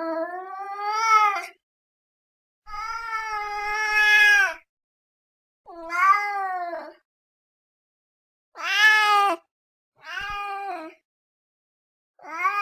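Domestic cat meowing: about six separate meows, each lasting one to two seconds and rising then falling in pitch, with silent gaps between them.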